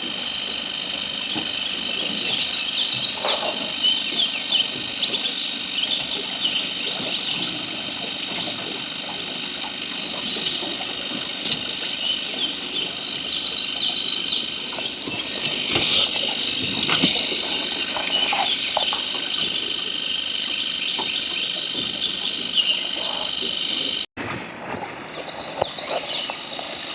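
Outdoor riverside ambience: a steady high-pitched drone with many short chirps over it. The sound drops out abruptly for an instant about 24 seconds in.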